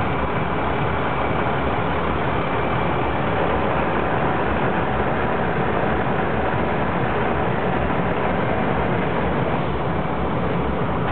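A large engine running steadily: a constant, unbroken rumble and hiss.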